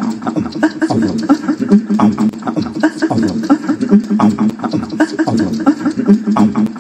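Vocal percussion: a person beatboxing a fast, steady dance rhythm of mouth clicks and beats over a low hum.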